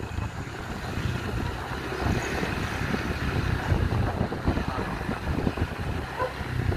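Motorcycle engine running while riding, with wind noise on the microphone.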